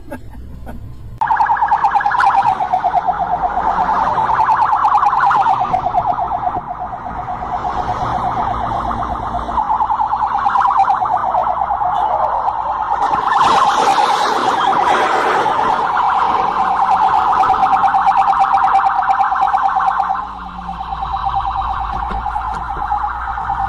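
Police car siren sounding continuously with a fast warble and slowly sweeping pitch. It starts abruptly about a second in and cuts off suddenly near the end, with a louder rush of noise under it around the middle.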